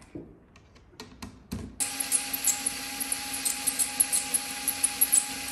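A small low-voltage Ryobi cordless driver starts about two seconds in and runs steadily with an even whine, backing a Torx security screw out of a power-tool battery case, with irregular clicking over the motor. A few short handling clicks come before it starts.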